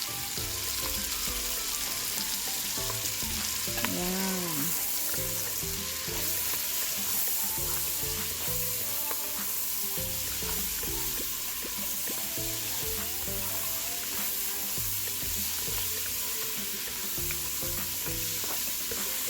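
Diced onion, garlic, bell peppers and black olives frying in a pan with a steady sizzle.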